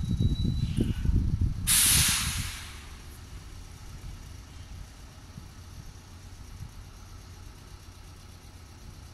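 Electric commuter train letting out a sudden loud hiss of compressed air from its brakes about two seconds in, fading over about a second as the train slows almost to a stop. Low rumbling comes before the hiss, and a quieter low hum follows it.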